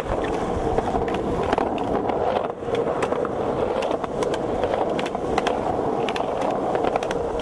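Skateboard wheels rolling on concrete, with sharp clacks from the deck and trucks hitting and scraping along concrete ledges.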